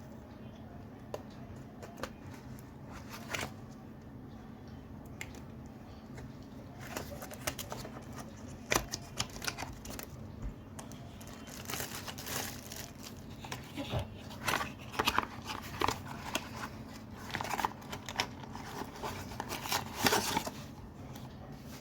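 Packaging being opened by hand: a few scattered clicks, then from about seven seconds in, a long stretch of crinkling, rustling and tearing as the wrapping is pulled apart and the cable is taken out.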